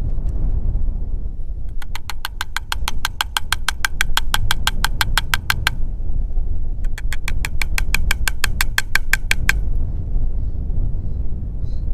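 Rapid, evenly spaced clicking, about eight clicks a second, in two runs of a few seconds each with a short break between them, over a steady low rumble.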